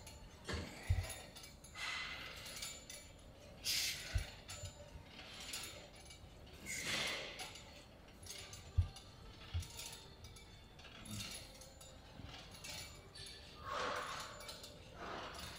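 Lever-arm gym press machine clicking and clanking through slow repetitions, with a few short low thumps.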